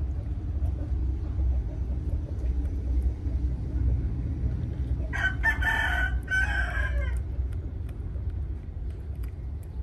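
A rooster crows once, about five seconds in: a call of roughly two seconds with a short break in the middle, dropping in pitch at the end. A steady low rumble sits underneath.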